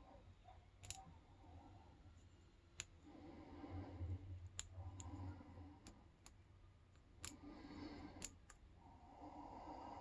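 Hook pick working the pin stack of an all-brass pin-tumbler padlock held under heavy tension: faint scraping with about nine small sharp clicks at irregular intervals as the pins are lifted and released.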